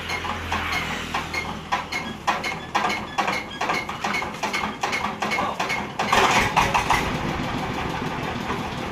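Diesel engine of a mobile rice-milling vehicle being hand-cranked, with rhythmic clicking about four times a second as the crank turns it over. About six seconds in it catches with a louder burst and settles into a steady run.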